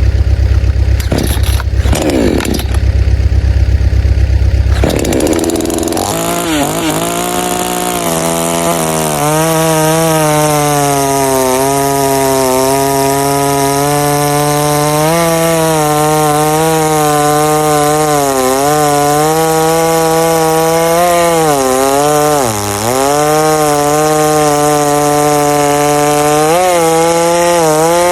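Two-stroke chainsaw at full throttle cutting through wood, its pitch sagging again and again as the chain bogs under load, most deeply about two-thirds of the way through. It is preceded by about five seconds of loud low rumbling with a few knocks.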